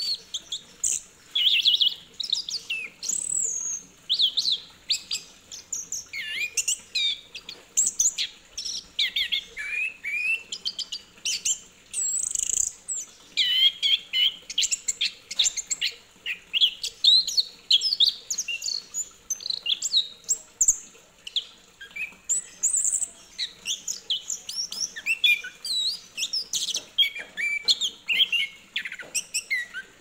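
Caged chestnut-capped thrush (anis kembang) singing nonstop: a fast, varied stream of high whistles, chirps and quick glides, phrase after phrase with only short pauses.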